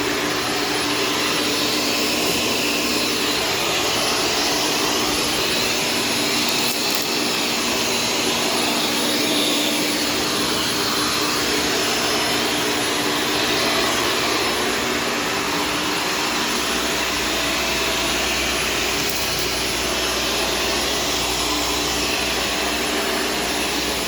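Corded Shark Stratos vacuum with a self-cleaning brushroll running steadily while floors are vacuumed: an even motor whine and airflow rush. A deeper rumble joins about two-thirds of the way through.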